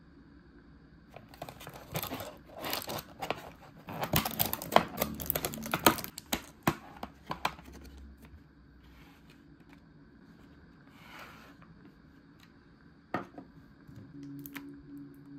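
Plastic food packaging being handled and opened, a dense run of crackling, crinkling and tearing for several seconds, then a few scattered clicks and one sharp snap. A low steady hum starts near the end.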